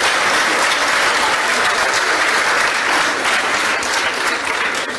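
Studio audience applauding steadily, the sustained clapping of a large crowd, fading away near the end.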